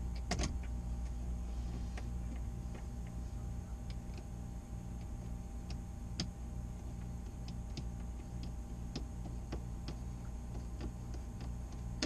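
Scattered light clicks and ticks from hands working a hose connection on a Vacuflush vacuum tank, over a steady low hum.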